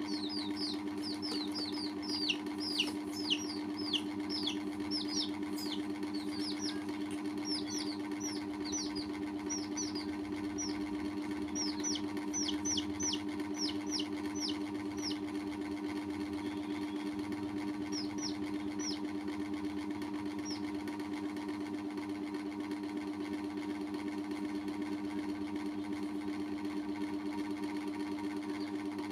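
Baby chicks peeping in quick high chirps that fall in pitch, many at first, thinning out and stopping about two-thirds of the way through. Under them runs a steady mechanical hum.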